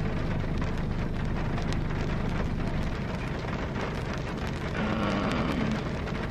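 Rain falling on a car's roof and windows, heard from inside the cabin: a steady hiss made of many small ticking drops.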